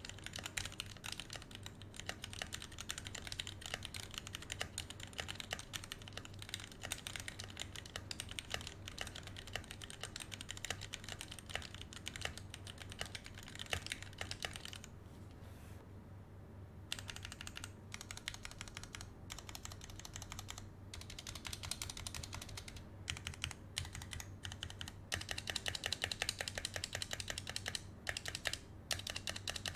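Typing on a Gamakay K61 keyboard with its stock, unlubed Gateron Black linear switches: a fast, steady run of keystrokes, with a pause of about two seconds midway and louder typing near the end.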